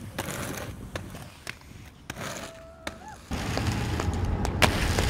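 Roller skates on concrete: a few light scrapes and clicks, then from about three seconds in the steady rumble of skate wheels rolling over rough pavement, with one sharp clack near the end.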